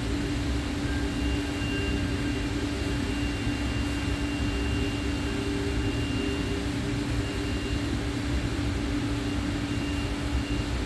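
Steady mechanical drone with a constant low hum and a faint high whine: a CNC machine running, mixed with a Makita DCM501 cordless coffee maker heating water towards the boil.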